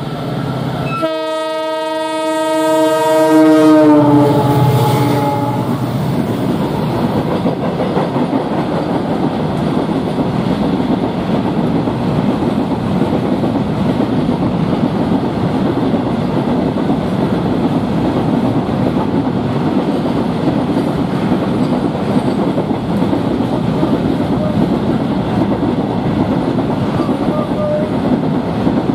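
WDG4D EMD diesel freight locomotive sounding its multi-tone horn for about three seconds, a greeting to a waiting passenger train; the horn's pitch drops as the locomotive goes by. Then the freight wagons roll past with a steady rumble and the clickety-clack of wheels over the rail joints.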